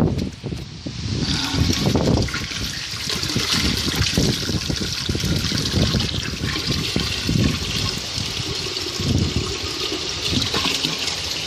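1995 Gerber Mt. Vernon toilet with water running steadily through it, a continuous hissing rush, with irregular low bumps and rumbles underneath.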